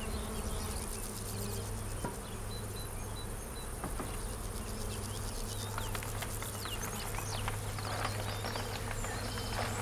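Carnica honeybees buzzing as a steady, dense hum, many bees in flight around their hives: busy foraging flight at full spring bloom.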